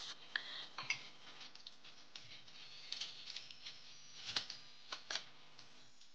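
Dishes and metal spoons clinking while being washed at a stainless steel sink, over the faint hiss of a running tap. A handful of sharp clinks, the loudest about four seconds in as spoons go into a plastic dish rack.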